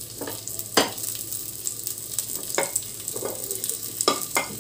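Ghee sizzling in a non-stick frying pan around a mound of brahmi-leaf pakora batter, with a few sharp clicks, the loudest about a second in.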